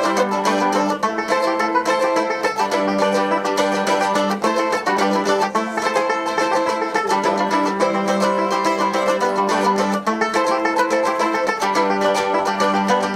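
Live band music played on fast-picked plucked string instruments, with a quick, even run of notes.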